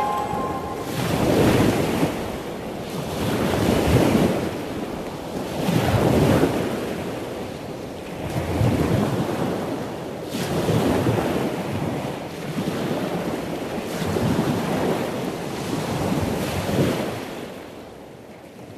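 Ocean surf breaking and washing over rocks, the rush of foam swelling and falling every two seconds or so. It fades out near the end.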